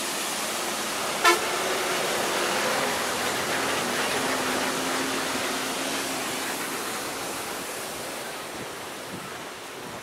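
Water of a mountain river rushing over small rocky cascades, a steady noise that slowly fades toward the end. A brief sharp sound about a second in.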